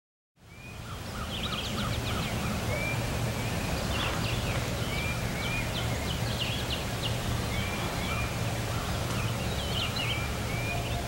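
Outdoor bird chorus: many songbirds chirping and giving short slurred whistles, over a steady low rumble. The sound fades in about half a second in.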